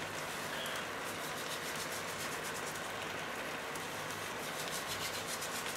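Rice cooking in oil in a frying pan, a steady sizzle with fine crackling.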